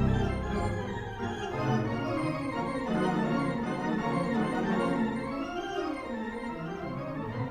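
Instrumental background music with several melody lines moving at once; the deep bass notes drop away about a second in.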